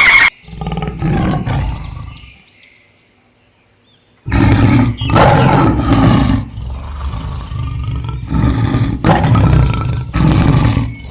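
An animal roaring, loud and repeated about five times in the second half after a brief hush, with softer animal sounds in the first two seconds.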